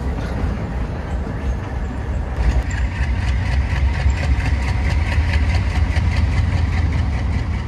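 ALCO diesel locomotive engines running, a deep steady rumble that grows louder and harsher about two and a half seconds in, with a fast rhythmic beat in the upper part of the sound.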